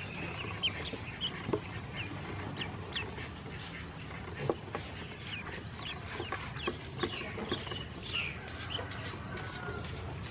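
Several ducklings peeping, with short high cheeps coming one after another throughout.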